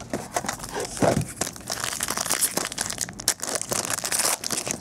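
Hands opening a Supreme football card box: cardboard shifting, then the pack's clear plastic wrapper crinkling and tearing in a quick run of crackles.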